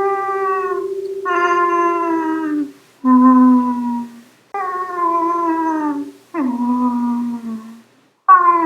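A man's voice imitating cat meows: a string of about five long, drawn-out meows, one after another, most of them falling in pitch.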